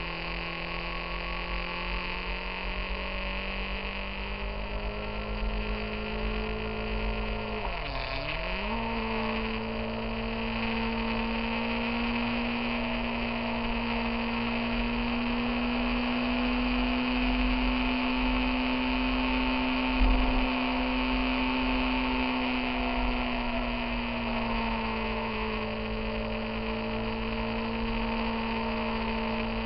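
Motorcycle engine running at steady revs on the move, with wind noise. About eight seconds in the revs dip sharply and come straight back up, and later they ease down a little; there is a brief knock near the two-thirds point.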